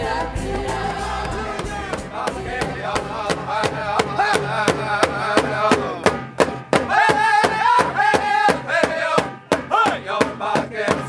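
Voices singing a chant to a steady beat of sharp percussion strikes. About two seconds in, a bass-heavy music backing drops away, leaving the singing and percussion.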